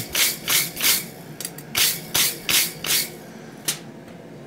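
A hand wire brush scrubbing a forged iron hinge strap in quick back-and-forth strokes, about three a second. There is a short pause about a second in, the brushing stops after about three seconds, and a single light click follows.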